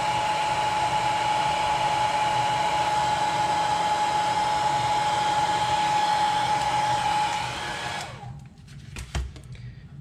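Electric heat gun blowing hot air to shrink heat-shrink tubing over freshly soldered battery leads: a steady blowing rush with a constant whine, which winds down and stops about eight seconds in. A single light knock follows about a second later.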